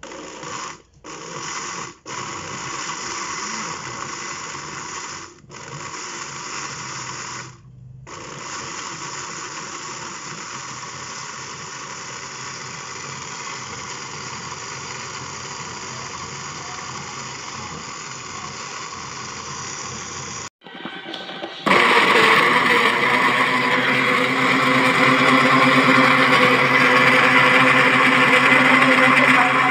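A 300 W CASSIUS blender's motor is running with the glass jug full of liquid, blending it. It cuts out briefly four times in the first eight seconds, then runs steadily. After a short break about two-thirds of the way in, it runs again louder.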